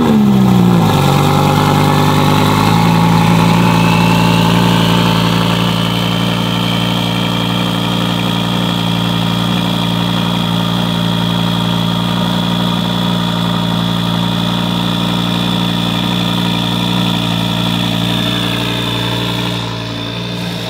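Twin-turbo Audi R8 V10 just after a cold start: the revs fall back from the start-up flare over the first few seconds, then it settles into a steady fast idle, with a high thin whine over the engine note.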